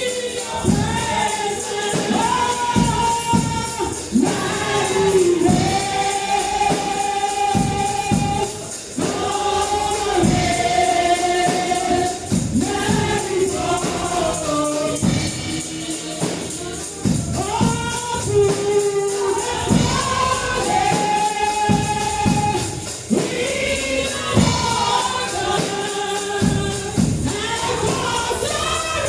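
Gospel choir singing with a tambourine and percussion keeping a steady beat.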